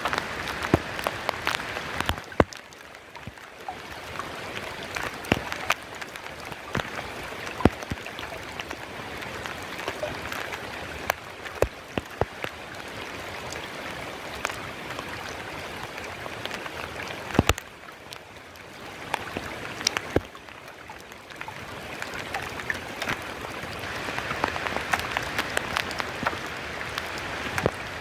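Heavy monsoon rain pouring, a dense hiss full of sharp, close drop and drip hits; the downpour eases briefly twice and swells again.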